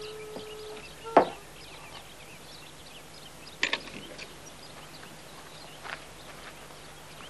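The last held note of the soundtrack music ends under a second in. A loud knock follows about a second in, a sharper one near the middle and a softer one near the end, with faint short chirps behind.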